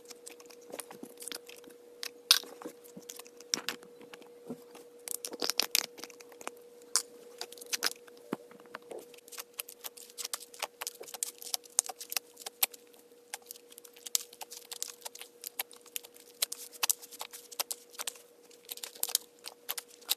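Slime being squeezed and stretched by hand: a dense, irregular run of small sticky clicks, pops and crackles, with louder clusters about two seconds and five to six seconds in. A faint steady hum sits underneath.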